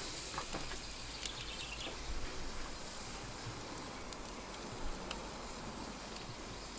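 Wood fire burning in a wood-fired pizza oven: a steady soft hiss with a few faint crackles.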